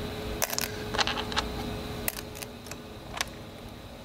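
Pliers being handled in a toolbox drawer's plier holders: a scattered series of short, light clicks and taps.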